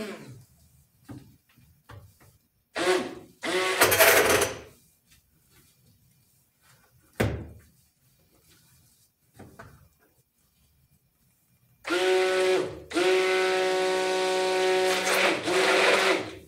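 A small motor runs with a steady, even-pitched hum for the last four and a half seconds, dipping briefly twice. Before it come a couple of short rustling noises and a single sharp click.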